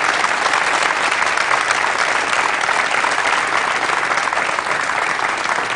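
Studio audience applauding, a dense steady clapping that eases off near the end.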